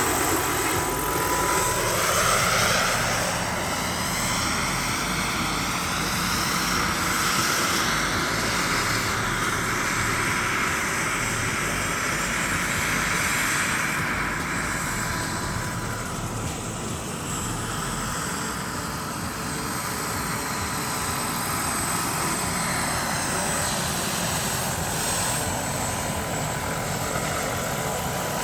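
Radio-controlled model helicopter flying, its rotor and motor whine sweeping up and down in pitch as it passes and manoeuvres, over a steady high tone.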